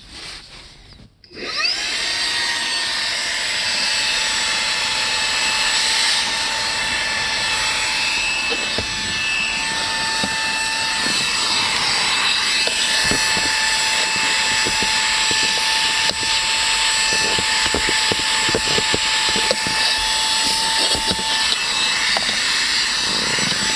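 Xiaomi Mijia handheld cordless vacuum cleaner with a brushless motor, switched on about a second in and spinning up with a rising whine. It then runs steadily with a high whine, with scattered clicks and rattles in the middle as it sucks up small debris.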